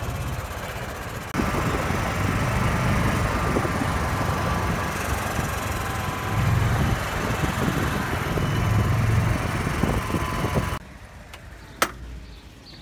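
Steady wind and motor rumble of riding in a moving open golf cart. Near the end it cuts to a much quieter scene with a single sharp click.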